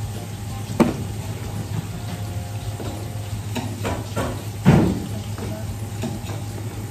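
Fish-preparation work at a counter: scattered knocks and clicks of handling and cutting over a steady low hum, with the two loudest knocks about a second in and a little past the middle.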